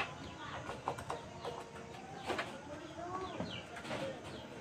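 A few light clicks from handling the motorcycle's throttle grip, with faint bird calls in the background.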